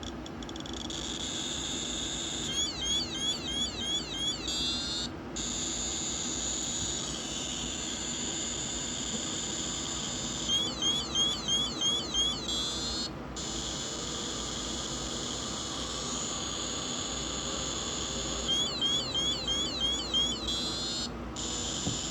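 Radiation detector held over the exposed americium-241 source from a smoke detector, giving a steady high-pitched hiss of counts. Three times it breaks into runs of rapid chirping alarm beeps, about three a second for two to three seconds each, the sign of a high radiation reading.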